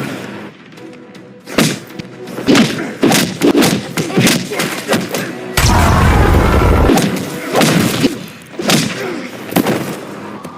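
Fight sound effects: a rapid series of heavy punches and body impacts over background music. About five and a half seconds in comes a deep boom lasting over a second.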